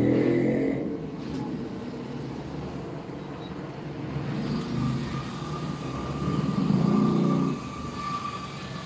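Road traffic: vehicle engines running and passing, swelling twice in the second half, with a steady high tone that comes in about halfway.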